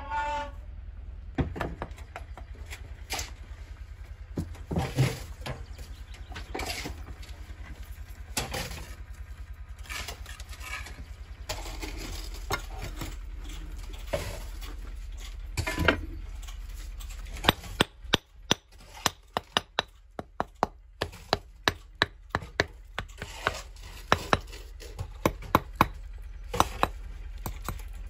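Mason's hammer knocking and tapping on schist stones in a stone wall. The strikes are scattered at first, then come as a quick run of sharp taps about two to three a second through the second half.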